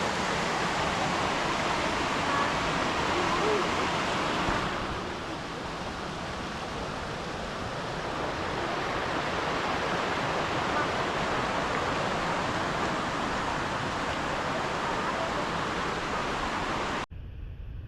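Waterfall: a steady rush of falling water that turns a little duller about a quarter of the way through, then cuts off abruptly near the end into a quieter, lower rumble.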